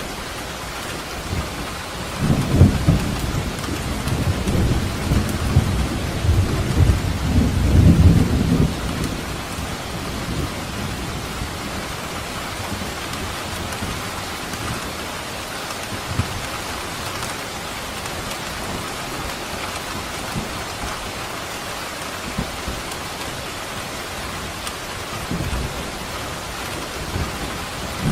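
Steady heavy rain falling on surfaces, with a long low rumble of thunder rolling through from a couple of seconds in until about nine seconds in, and a fainter rumble near the end.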